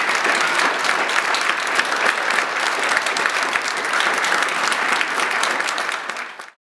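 Audience applauding: dense clapping that fades out and stops near the end.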